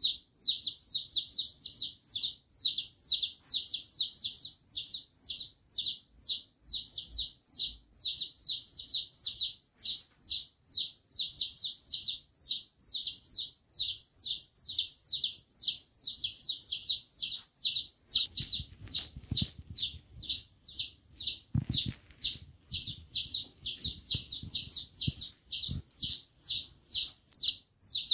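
Baby chicks peeping without pause: high, falling peeps, about three to four a second. A few soft low thumps come in the second half.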